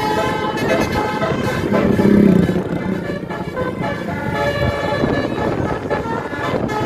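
Indonesian tour bus's basuri telolet horn sounding, several steady tones together, over the rumble of traffic. A louder low swell comes about two seconds in.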